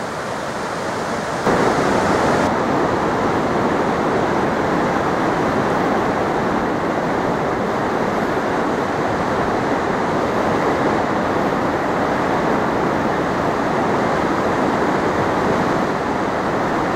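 Steady rush of a fast mountain river's white-water rapids. It steps up louder about one and a half seconds in.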